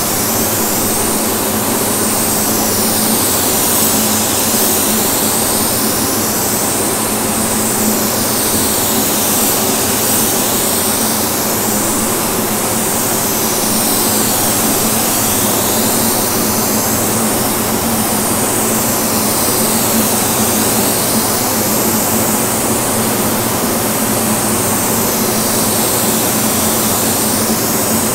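Gravity-feed compressed-air spray gun hissing steadily as it sprays automotive clear coat, the hiss sweeping up and down in tone every few seconds. A steady low hum runs underneath.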